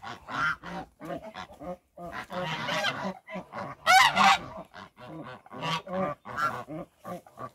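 A flock of domestic Linda geese honking in short, repeated calls, several birds overlapping. The loudest and shrillest burst of calls comes about four seconds in.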